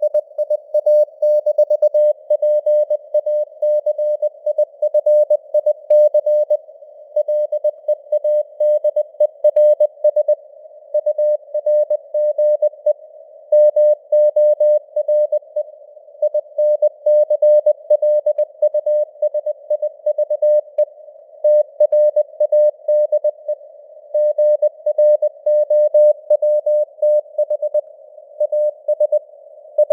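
Morse code (CW) sent at 20 words per minute: a single mid-pitched beep keyed on and off in quick dots and dashes, over a narrow band of simulated radio hiss.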